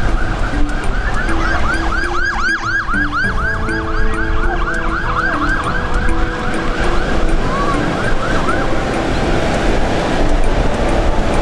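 Emergency vehicle siren wailing in a fast yelp, about three rising-and-falling sweeps a second, cutting off about three-quarters of the way through. Under it is a steady rush of storm wind and surf.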